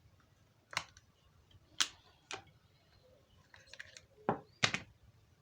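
Handling noise from a mobile phone and small tools: five sharp clicks and taps of hard plastic, with a cluster of faint ticks between the third and fourth.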